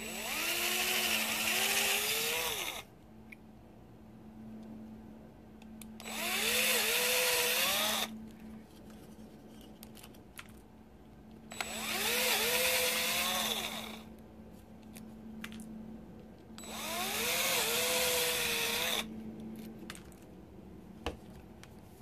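Cordless DeWalt drill boring holes with a 3/32-inch bit into the ends of a 3D-printed plastic part: four runs of two to three seconds each, the motor whine rising as it spins up and then holding, with short pauses between.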